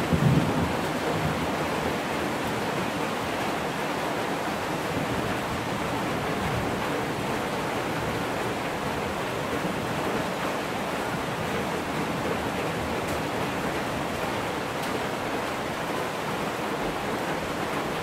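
Steady rain falling, an even hiss throughout, with a brief low thump right at the start.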